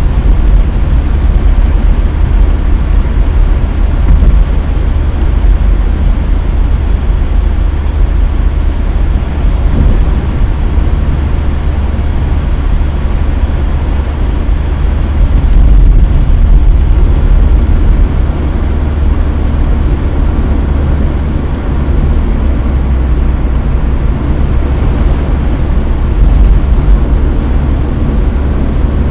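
Steady low road rumble of a car driving at speed: tyre noise and engine, heard from inside the car.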